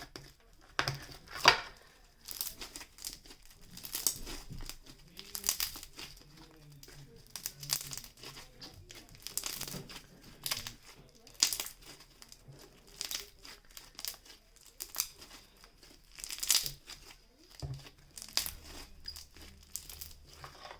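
Play-Doh slime being squished and stretched by hand, giving off irregular crackling, popping clicks throughout.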